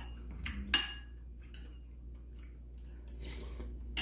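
Mealtime table sounds: a utensil clinks sharply against a dish about a second in, with smaller clicks and scrapes of eating and another clink near the end, over a steady low hum.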